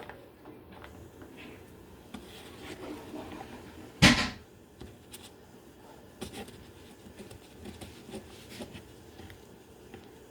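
Kitchen handling sounds: light knocks and clicks of dishes and utensils being moved, with one sharp loud clunk about four seconds in.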